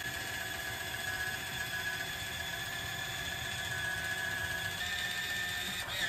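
Kitchen Mama side-cutting electric can opener running as it travels around a can, a steady motor whine whose pitch dips briefly about halfway through.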